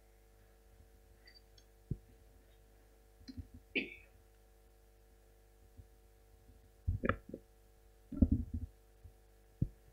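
Handheld microphone handling noise: a scatter of low thumps and knocks as the microphone is taken up and held, over a faint steady electrical hum of the PA line.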